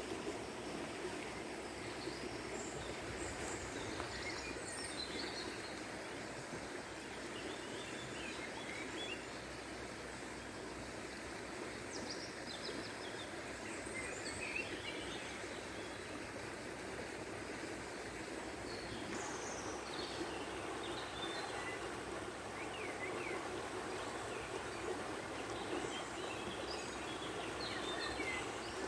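Small birds chirping and twittering in short scattered calls over the steady rush of flowing water.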